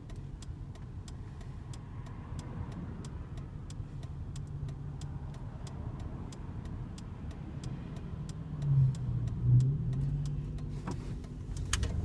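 1999 GMC Suburban's 5.7 Vortec V8 running as the truck drives and accelerates around a corner, with two brief louder surges about nine seconds in. A regular light ticking, about four a second, sounds over it. The engine is warmed up, and the knock the owner has been chasing, which softens as the engine warms, is almost gone.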